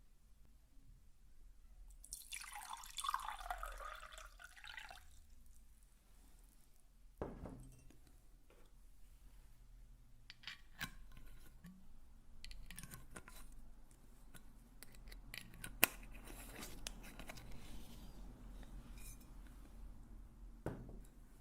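Close-miked ASMR object sounds: a rustling swish lasting a few seconds, then scattered light taps and clicks over soft handling noise.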